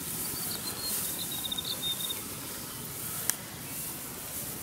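Bush ambience: a steady high insect hiss, with a bird's short high chirps in the first two seconds, over the swish of footsteps through long grass. A single sharp click a little over three seconds in.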